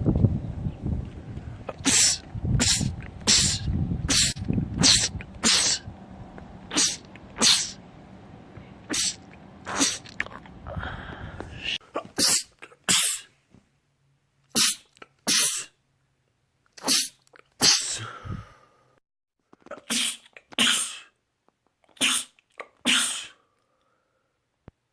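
A person sneezing over and over in quick succession: about twenty short, sharp sneezes, many coming in pairs less than a second apart. A low rumble runs underneath and stops about halfway through.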